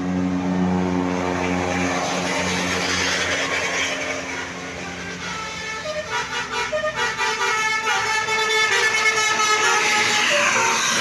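A bus engine runs close by, then from about five seconds in a multi-tone 'telolet' musical air horn (Basuri type) plays a quick tune of changing notes.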